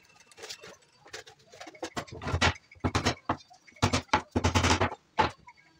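Irregular knocks and clattering, with several loud thumps close together between about two and five seconds in.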